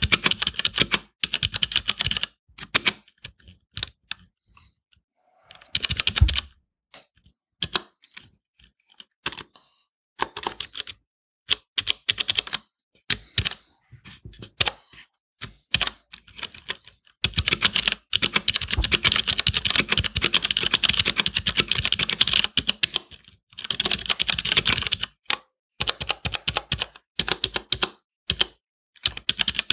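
Typing on a WASD VP3 61-key mechanical keyboard with Cherry MX Brown switches, fitted with the thick blue 0.4 mm rubber O-ring dampeners under the keycaps. The keystrokes come in short, scattered bursts at first, then turn into fast, continuous typing a little past halfway.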